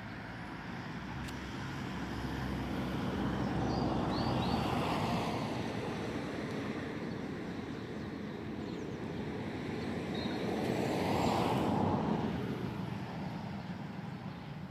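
Road traffic: two vehicles pass one after the other, each swelling up and then fading away, the first loudest about four seconds in and the second about eleven seconds in.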